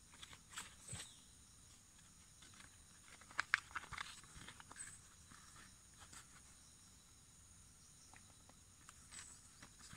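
Faint crackles and snaps of dry kithul palm sheath and bracts being handled around the flower stalk, with a cluster of louder clicks about three and a half seconds in, over a steady high-pitched drone.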